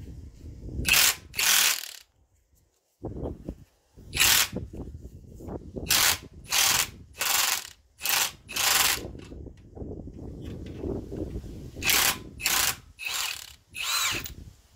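Cordless Milwaukee Fuel impact wrench hammering in about a dozen short trigger bursts, each under half a second, mostly in pairs and groups, as it turns a threaded bolt through a BMW E39 rear subframe bush.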